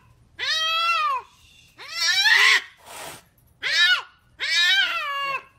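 Domestic cat meowing loudly and repeatedly: four long, drawn-out meows that rise and then fall in pitch.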